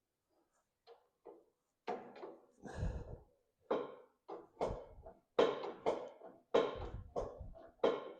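A string of short metal knocks and clunks while the clutch rod and yoke of a 1925 John Deere Spoker D are worked on to shorten the yoke adjustment. They begin faint about a second in, then come louder, roughly two a second.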